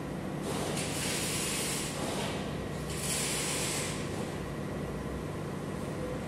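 CNC round-log sawing machine running with a steady hum, with two spells of hissing noise, the first starting about half a second in and the second about three seconds in.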